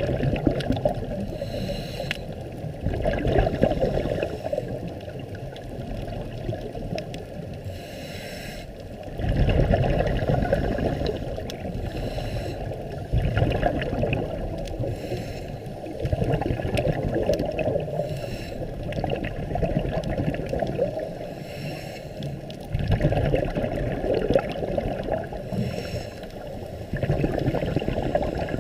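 Scuba diver's breathing heard underwater: exhaled bubbles gurgling up in muffled surges every few seconds, each lasting two to four seconds.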